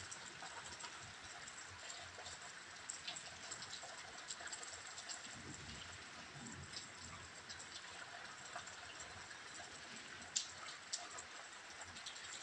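Rain falling steadily during a storm, a soft even hiss with many scattered drops ticking.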